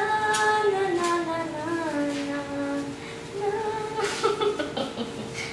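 A woman singing a few long held notes, the pitch sliding slowly downward with a brief wobble, then shorter notes after a pause of about half a second, over a steady hum.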